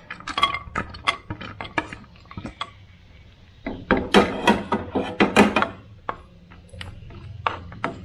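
Cashew nuts dropped into a pan of hot ghee: a run of irregular clicks and clatter, densest and loudest about four to five and a half seconds in.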